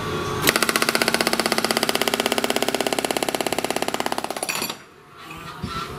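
Hydraulic breaker hammer on a CMX18 electric mini excavator chiselling into a rock, firing rapid, even blows, well over ten a second, for about four seconds before stopping abruptly. A steady machine hum comes before the blows start.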